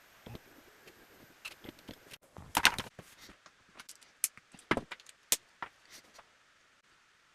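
Irregular sharp clicks and light knocks of small hard parts being handled and fitted together, the loudest cluster about two and a half seconds in.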